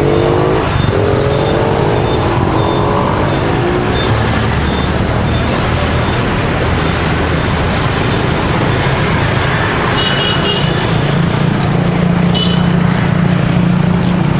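Busy street traffic running steadily, with engines humming and one speeding up and rising in pitch near the start, and short horn toots about ten and twelve seconds in.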